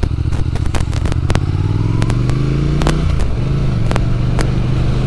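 Triumph Thruxton parallel-twin motorcycle engine pulling away under acceleration: the revs climb, drop sharply at an upshift about three seconds in, then hold steady as it rides on.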